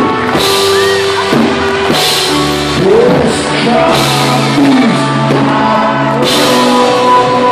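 Live rock band playing in a hall, with held keyboard chords under a singing voice that slides in pitch.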